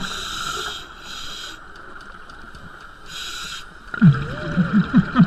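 Scuba diver breathing through a regulator, heard underwater through a camera housing: three short inhalation hisses, at the start, about a second in and about three seconds in, then from about four seconds in a louder string of exhaled bubbles gurgling in quick bursts.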